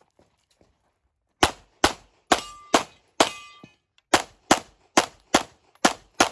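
Open-division competition pistol firing about eleven rapid shots, starting about a second and a half in, in quick strings about half a second apart. A short metallic ring follows two of the shots near the middle.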